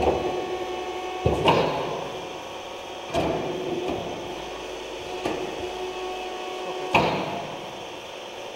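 Ruffinatti IM70 sugar-mass kneader running empty: a steady machine hum with a sharp clunk about every one and a half to two seconds as its folding arms work through their cycle.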